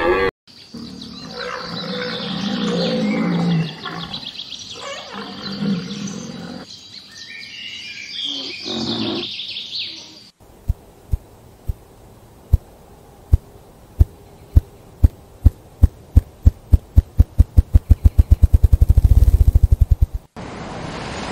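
Wild animal sounds in two parts. First, about ten seconds of mixed calls, with high bird chatter over low grunts. Then a series of sharp pops that speed up steadily into a rapid low roll and cut off suddenly.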